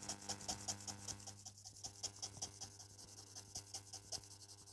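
Nail buffer rubbed quickly back and forth over a gel-top-coated false nail tip: a faint, rhythmic scratchy rasp at about five strokes a second, weakening slightly after a second and a half. The cured top coat is being buffed matte so acrylic paint will grip it. A low steady hum sits underneath.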